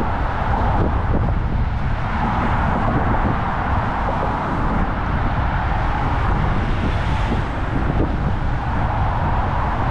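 Steady road traffic noise of cars passing on a busy road, with a low wind rumble on the microphone.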